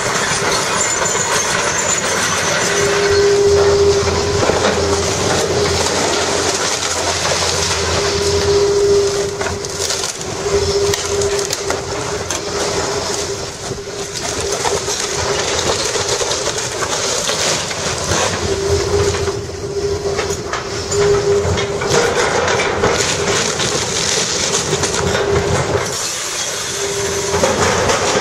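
Excavator demolishing a building: its engine and hydraulics run under load with a tone that comes and goes, over continuous crunching, scraping and clanking of breaking concrete, steel and debris.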